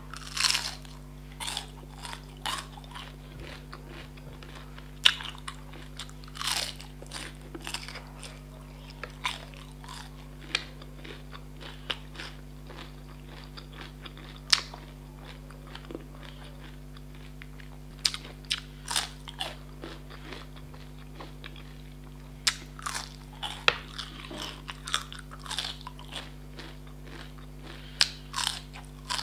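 Close-miked biting and chewing of crisp, syrup-soaked jalebi: irregular crunches, some sharp and loud, between quieter chewing, over a steady low hum.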